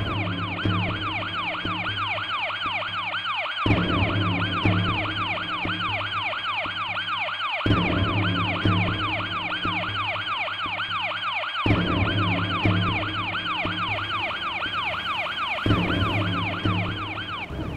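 Ambulance siren wailing continuously, sweeping rapidly up and down in pitch several times a second. Under it, a music score plays sustained low chords that change about every four seconds.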